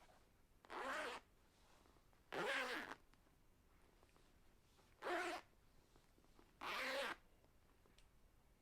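A clothing zipper pulled four times, each quick zip lasting about half a second, with pauses of one to two seconds between them.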